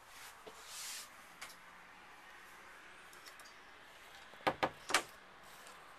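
A short swish and a small click, then three sharp knocks in quick succession near the end.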